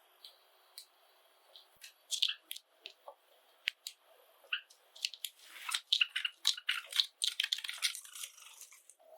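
Java sparrows chirping, with short sharp high notes at first, then a quick run of many notes from about five seconds in.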